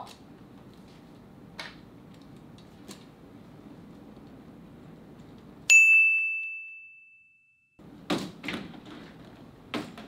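A single bright ding sound effect, a clear bell-like tone that strikes about halfway through and fades away over about two seconds. Before and after it, low room tone with a few faint clicks and soft knocks.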